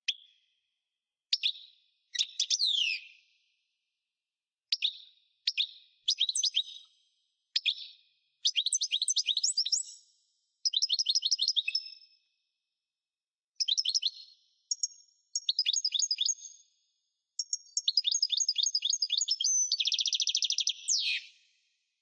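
European goldfinch song: a string of short twittering phrases and rapid trills broken by brief pauses. Near the end comes a dense buzzy trill that closes on a falling sweep.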